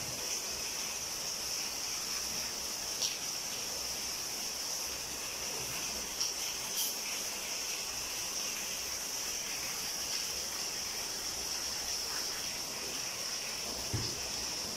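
Steady high-pitched background drone, with a few faint clicks and a light knock near the end.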